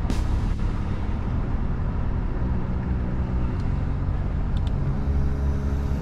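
Road traffic heard from inside a car stopped at an intersection: a steady low rumble of engines as cars cross and pull away ahead.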